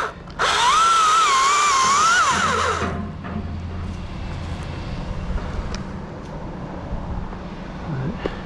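Chainsaw run at full throttle for about two and a half seconds, its pitch wavering as it cuts, then dropping back. A low steady engine hum runs underneath.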